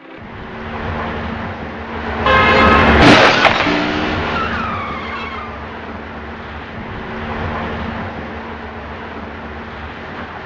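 Car tires squealing in a skid, ending in a sharp crash about three seconds in, with a falling squeal after it, over steady traffic noise.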